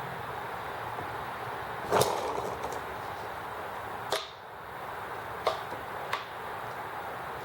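ET6 white-gas hit-and-miss model engine firing four irregularly spaced sharp pops over a steady running noise, the first the loudest.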